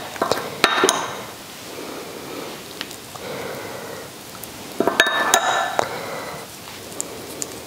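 A metal spoon clinks and scrapes against a small ceramic bowl as spice rub is scooped out, in two bursts: a few clicks near the start and a louder cluster about five seconds in. Between them there is soft rubbing as the rub is spread into scored pork belly.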